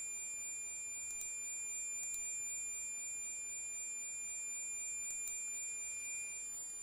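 Steady high-pitched electronic whine from an Asus Transformer Book T100's audio output, several pure tones held at once: the known fault of this tablet-laptop, present both before and after the November 2013 firmware update. A few faint clicks are heard over it, and the lower of the tones fades out near the end.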